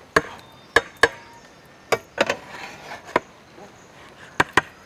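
Flat metal spatula knocking and scraping against the sides of a large metal cooking pot while turning over cooked biryani rice: about nine sharp, irregular knocks, with a short stretch of scraping through the rice in the middle.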